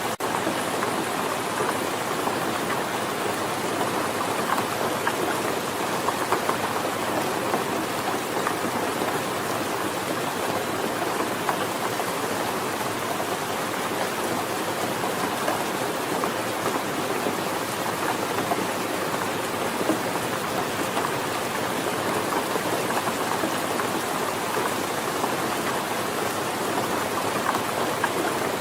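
Steady heavy rain falling, a dense even patter of drops on a surface.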